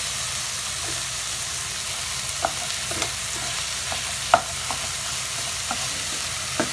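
Tomatoes, onion, garlic and ginger sizzling in oil in a granite-coated pot, with a spatula scraping and knocking against the pot as the tomatoes are mashed. There are a few short knocks, the loudest about four seconds in.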